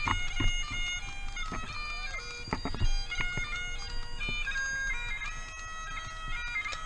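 Bagpipe music: a steady drone under a shifting, held-note melody. A few sharp knocks sound over it in the first three seconds.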